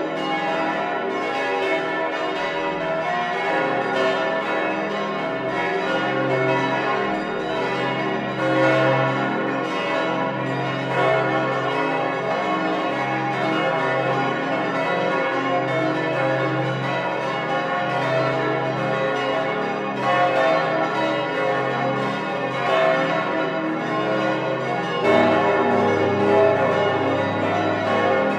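Several large bronze church bells, the 1960 Pfundner bells of a cathedral tower, swinging and ringing together in a full peal, heard close up inside the bell chamber with their strikes overlapping continuously. A deeper tone joins near the end.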